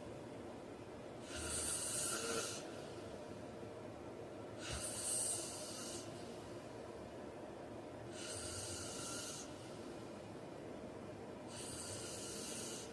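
A man snoring in his sleep: four breathy snores, each about a second long, coming evenly about every three and a half seconds.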